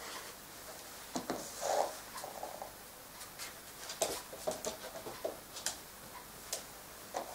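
Dalmatian puppy's claws clicking on a wooden floor as it walks about: a scatter of light, irregular ticks.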